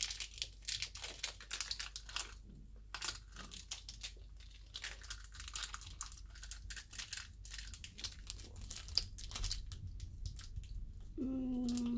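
Plastic toy packaging crinkling and crackling in quick irregular bursts as it is pulled and worked free.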